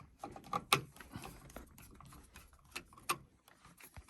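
Irregular small clicks and taps of a screwdriver and bare copper ground wire as the ground is fastened to a new single-pole light switch's ground screw.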